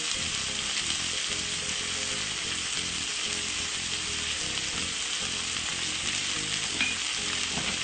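Curly kale, carrot and pasta stir-frying in a pan, a steady sizzle, with background music.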